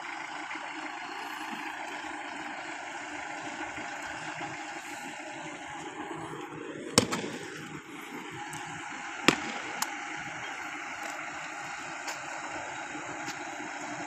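SANY truck-mounted concrete boom pump running steadily, its engine and hydraulics giving an even mechanical noise, with a few sharp knocks: the loudest about seven seconds in and two more a couple of seconds later.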